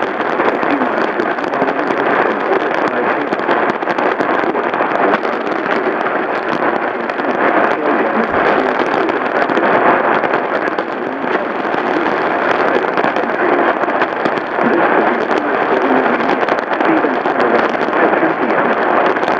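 Steady, loud hiss of radio static with no tones or voice, the noise of a receiver tuned to a broadcast channel between alert messages.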